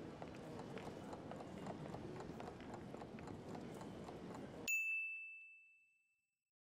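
Faint background ambience with scattered light clicks, then about four and a half seconds in a single bright chime rings out and fades over about a second: the quiz timer's time's-up signal.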